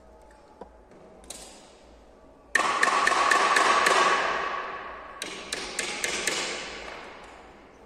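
Hollow bamboo pieces scraping and knocking against a bamboo-slat tabletop as a small bamboo trophy is picked up and handled: a sudden rush of scraping with sharp clicks, a second run of clicks a few seconds later, then fading away.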